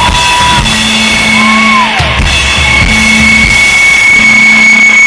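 Rock band playing live and loud through a PA: drum kit and electric guitars, with a steady high ringing tone running through the mix.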